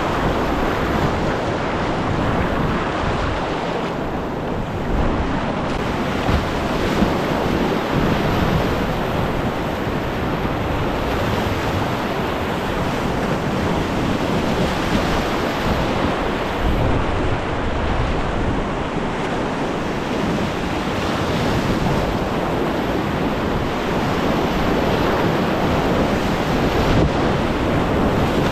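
Whitewater river rapids rushing steadily.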